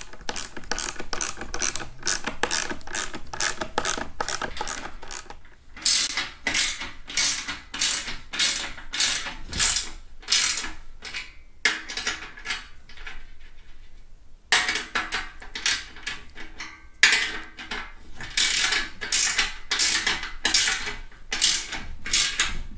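Ratcheting wrench clicking as it tightens a nut, in repeated runs of about three clicks a second. There are short breaks between runs.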